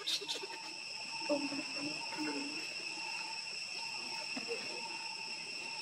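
Steady chorus of insects droning, with several high pitches held unchanging throughout.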